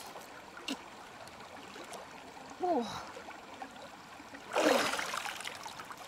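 Shallow river water running steadily, with a short swooping call a little before halfway. Near the end comes a splash as a large freshwater mussel is pulled up out of the water by hand.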